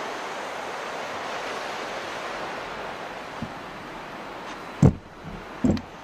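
Surf washing onto a sandy beach as a steady hiss that thins out about halfway through, then two short loud thumps near the end.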